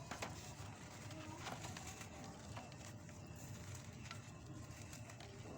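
Faint crumbling and crackling of hardened pure cement, a few small cracks near the start and about a second and a half in, between quieter scattered crunches.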